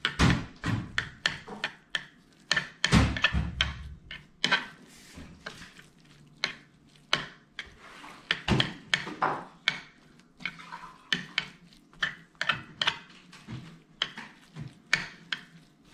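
Metal fork clinking and scraping against a plate as scrambled eggs are mixed together, in many short, irregular taps and scrapes.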